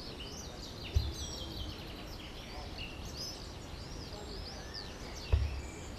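Small birds chirping, many quick high calls over a faint steady outdoor hiss, with two brief low thumps, about a second in and near the end.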